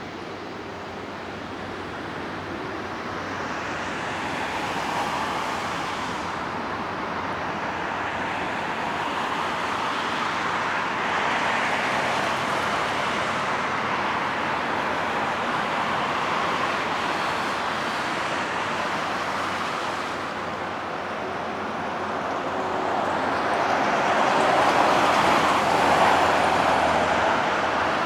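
Jet noise of an Airbus A350-900's Rolls-Royce Trent XWB turbofans on landing: a broad rushing sound that builds, eases a little past the middle, and swells loudest near the end.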